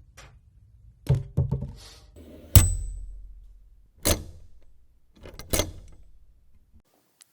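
A series of separate sharp knocks and thuds, each trailing off, the loudest about two and a half seconds in with a brief high ring.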